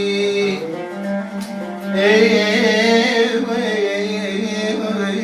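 Arabic song music: instrumental accompaniment, then about two seconds in a singer holds a long wavering note over it.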